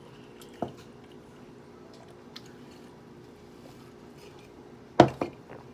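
A woman burping: a short burp about half a second in, then a loud belch near the end, followed at once by a second, smaller one.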